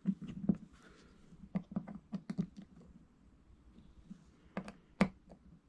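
Light, irregular clicks and taps of small parts being handled and pushed into place on an N gauge model locomotive, with one sharper click about five seconds in.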